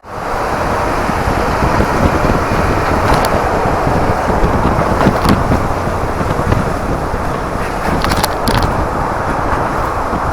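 Steady rush of wind and road noise inside a Daihatsu Copen driven roof-down at expressway speed, with a few short sharp ticks against the microphone.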